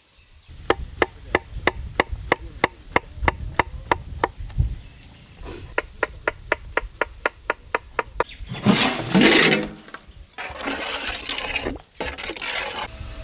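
A knife slicing bananas against a metal plate: sharp, evenly spaced taps, about four a second, in two runs. About nine seconds in comes a louder burst of noise, followed by a softer rustling hiss.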